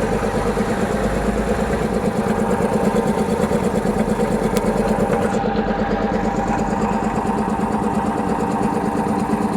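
England-made air compressor running steadily with a fast, even pulsing, building pressure toward its automatic cut-off.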